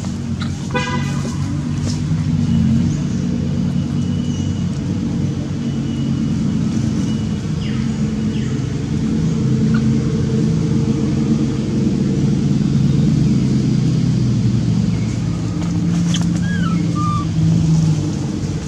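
Steady low engine rumble, like a motor vehicle running nearby, with a few short high chirps near the end.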